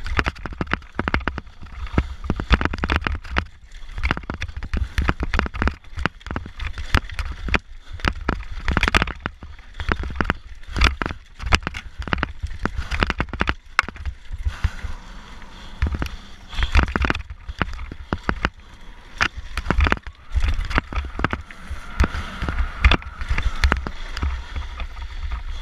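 Mountain bike descending a rough dirt trail at speed: constant rattling and knocking as it hits roots and rocks, with wind buffeting the microphone.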